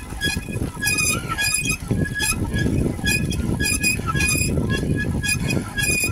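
An old bicycle squeaking as it is ridden: short, high-pitched squeaks repeat about every half second over a low rumble.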